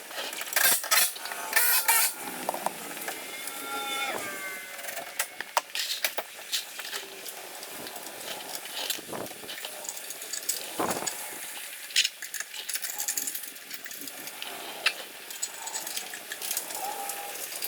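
Scattered sharp clicks and clanks of mechanical work with hand tools, with a few brief squeaks.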